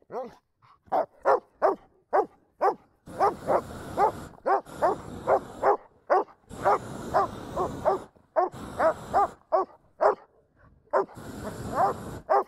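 German Shepherd barking excitedly in quick runs of short barks, about three a second, broken by short pauses. A rushing noise comes and goes behind some of the runs.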